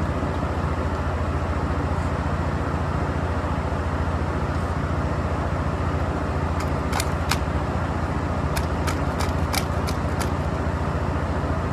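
A small nitro RC car engine being cranked over steadily by a starter without firing, a constant low hum with scattered sharp ticks. The owner puts its failure to start down to too much compression.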